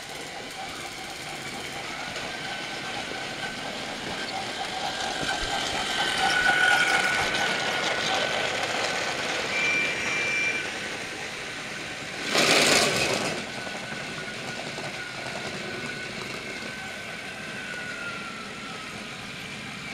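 Small electric motor of a battery-powered toy train running with a steady, slightly wavering whine. About twelve seconds in, a loud rush of noise lasts about a second.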